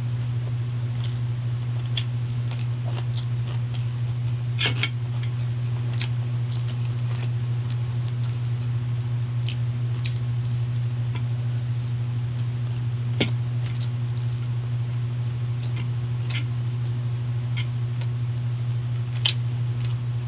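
Eating sounds: scattered clicks of a utensil on a plate and soft chewing, over a steady low hum. Two clicks come close together about four and a half seconds in, and single ones follow later.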